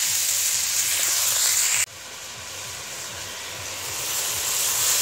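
Wet taro stolons sizzling loudly in hot oil and spice paste in an iron wok. The sizzle cuts off suddenly a little under two seconds in. A quieter hiss follows and builds near the end as water is poured into the wok.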